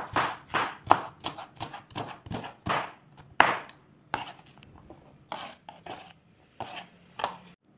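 Chef's knife chopping red bell pepper strips on a wooden cutting board: a quick, irregular run of knife strokes on the board, thinning out after about three and a half seconds to a few scattered knocks as the diced pieces are gathered.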